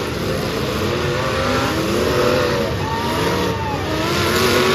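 Several demolition derby car engines revving at once, their pitches rising and falling and overlapping.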